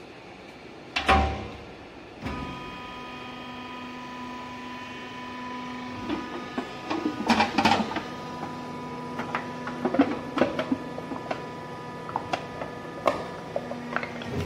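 Hydraulic drum crusher: the loading door bangs shut about a second in, then the electric motor and hydraulic pump start and run with a steady hum and whine. From about six seconds in, the ram crushes two small steel pails with a run of sharp metallic cracks and crunches.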